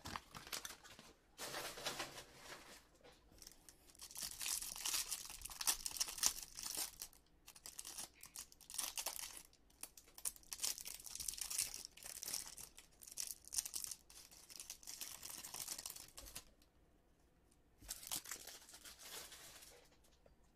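Card pack wrapper being torn open and crinkled in repeated bursts, with a short quiet spell near the end before a last bout of crinkling.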